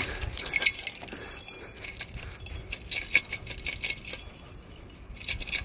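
Light metallic clinking and rattling of a rusted old exhaust section being handled, with loose debris rattling inside it.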